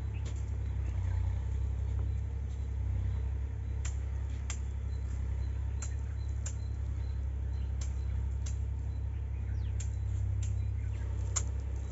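Steady low drone of a tractor engine working in the neighbouring field, with short sharp high clicks or chirps about once a second over it.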